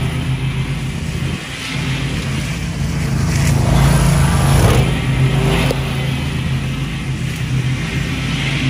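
Zero-turn riding mower's engine running steadily under load while its deck cuts tall grass. It grows louder as the mower comes close, a few seconds in, then eases off as it pulls away.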